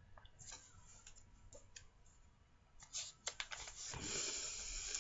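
A book being handled: scattered light clicks and paper rustling, with a louder, longer rustle from about four seconds in.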